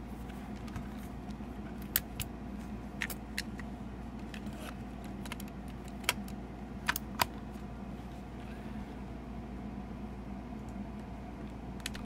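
Small sharp plastic clicks and taps from a Panasonic RQ-S15 portable cassette player being handled while a cassette is loaded into its open door, a handful scattered between about two and seven seconds in, over a low steady hum.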